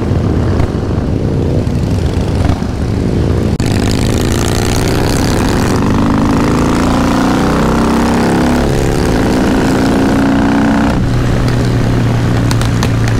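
Harley-Davidson V-twin motorcycle engine under way, its pitch rising and dropping back several times as the rider accelerates and shifts up through the gears, then settling to a steady cruise near the end. Wind rushes over the microphone for a stretch.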